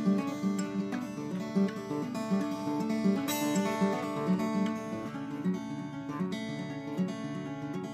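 Acoustic guitar playing an instrumental passage without vocals, a steady, repeating pattern of picked notes and chords.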